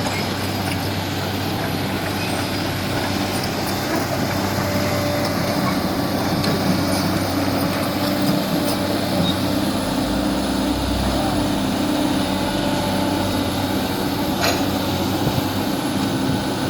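Kobelco excavator's diesel engine running steadily under work, with an occasional knock, sharpest one about two-thirds of the way through.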